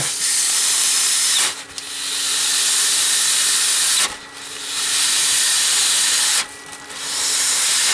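Steady rush of air blowing out of the exhaust tailpipe into a plastic bag, driven by the secondary air injection pump, with a faint steady hum under it. The rush cuts out sharply three times and builds back each time. Air getting through shows the combi valve and the pump are working and the passage into the exhaust manifold is not blocked.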